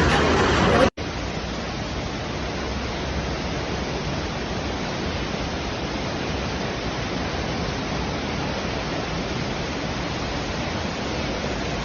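A steady, even rushing noise with no tone or rhythm, starting at a hard cut about a second in.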